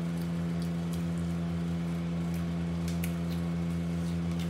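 A steady low machine hum in a small room, with faint scattered clicks and scrapes of a plastic spoon scooping food in a plastic takeaway container.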